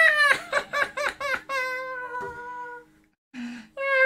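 A man's squeaky, high-pitched put-on voice for a toy monkey, wordless: a quick run of warbling yelps, then a long held call that falls slightly, and another high call near the end.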